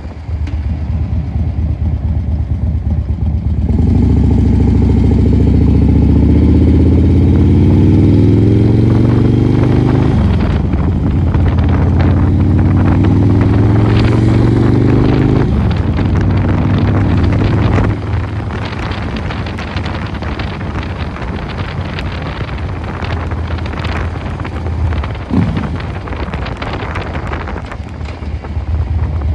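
Harley-Davidson Dyna Super Glide Custom's S&S 107 cubic-inch V-twin, breathing through a Vance & Hines 2-into-1 exhaust, accelerating through the gears. The engine pitch climbs, drops at a shift about ten seconds in, climbs again and shifts once more around fifteen seconds, then settles to a quieter, steadier run.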